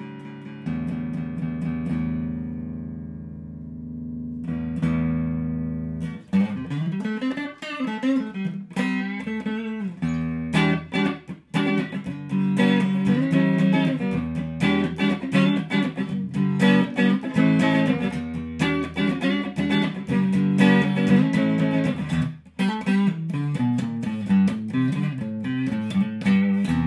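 Fender Sixty-Six electric guitar played clean through a Fender Bassbreaker 45 valve amp on its lipstick neck pickup, with a satiny tone. Held chords ring out for the first few seconds, then quicker single-note lines with string bends follow.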